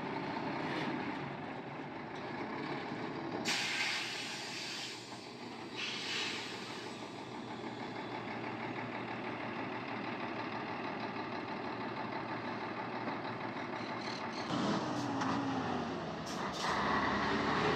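Heavy diesel truck engines running steadily, with two short air-brake hisses about three and a half and six seconds in. Near the end the RK dump truck's engine rises and revs as it pulls away.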